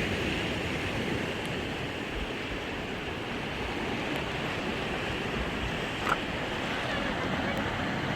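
Steady rush of wind and water, with wind buffeting the microphone, as from a jet ski under way on open sea. A short knock about six seconds in.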